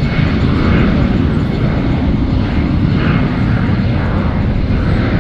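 Jet airliner's engines running on the runway, heard from the apron as a steady rushing noise, with heavy low rumble on the microphone.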